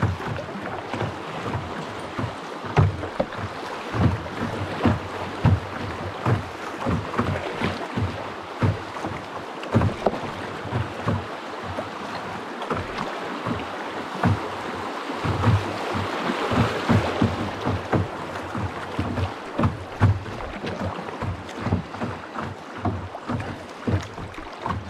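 Paddling a small boat on a river: a run of short low knocks and splashes from the paddle strokes, about one or two a second, over a steady wash of water and wind noise.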